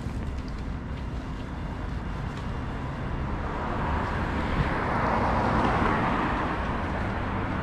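Road traffic: a steady low rumble, with a vehicle passing close that swells about four seconds in and fades near the end.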